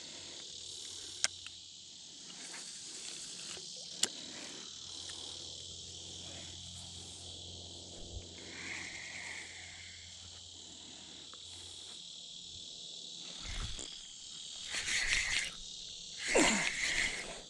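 A steady, high-pitched outdoor insect chorus, with two sharp clicks in the first few seconds and a few louder, brief sounds near the end.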